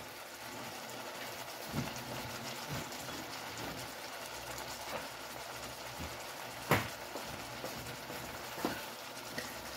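Shrimp and vegetable stew simmering in a pan on an electric stove, a steady low bubbling hiss, with a few short knocks, the sharpest about two-thirds of the way in.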